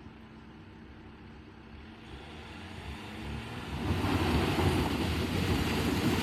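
2014 Jeep Grand Cherokee EcoDiesel's 3.0-litre V6 turbodiesel, first a faint low hum, then growing steadily louder from about two seconds in as a rough rumble, loudest over the last two seconds.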